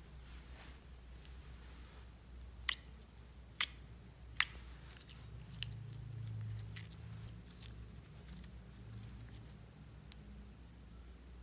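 Clear slime being pressed and pulled out of its plastic tub and stretched by hand, with three sharp popping clicks close together a few seconds in, then softer scattered sticky pops and clicks.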